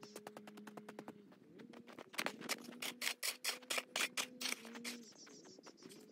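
Background music with held notes that change pitch in steps and a fast, even ticking rhythm. About two seconds in, a louder run of sharp crunching strokes lasts a couple of seconds, a snow shovel scooping packed snow.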